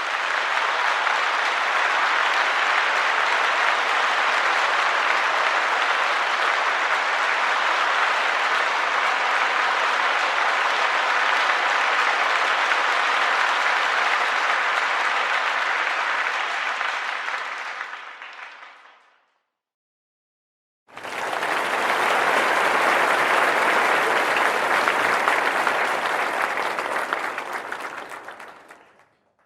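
Audience applause, many hands clapping at once: one round fades out about two-thirds of the way through, and after a short silence a second round with a fuller, deeper sound starts and fades out near the end.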